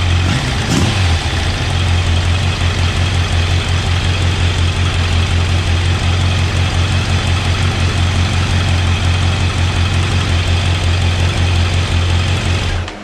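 Kawasaki motorcycle engine idling steadily, with an even pulsing beat, on its freshly rebuilt and balanced Keihin carburettors; the revs fall back to idle about a second in.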